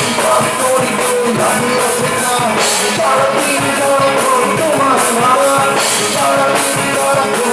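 Rock band playing loudly: electric guitars and a drum kit with steady cymbals, under a sung vocal line.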